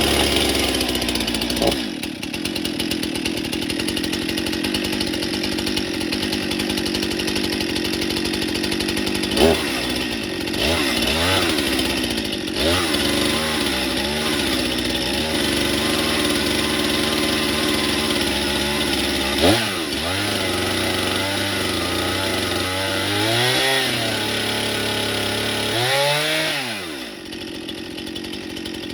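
Stihl MS 261 C-M two-stroke chainsaw running, revved up and down several times so the engine pitch rises and falls, then dropping back to a steady idle near the end.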